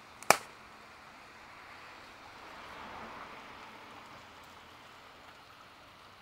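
A single sharp firework bang about a third of a second in, followed by a steady hiss of burning ground fireworks and flares that swells slightly midway.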